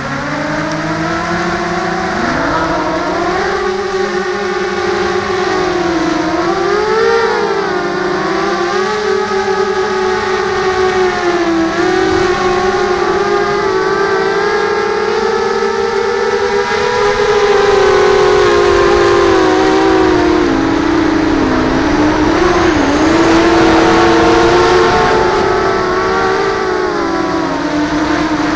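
Electric motors and propellers of an FPV multirotor drone built into a Millennium Falcon model, heard on board: a loud whine that rises about two seconds in as it lifts off the grass. The pitch then keeps wavering up and down with the throttle as it flies.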